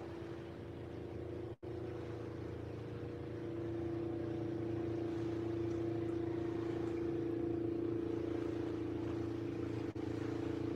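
An engine droning steadily at a constant pitch, getting a little louder about three and a half seconds in. The sound drops out for an instant twice.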